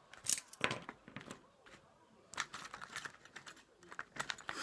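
Irregular small metal clicks and scrapes of a tool working at the circlip on a Master Lock Pro Series 6327 padlock's cylinder, trying to pry it off.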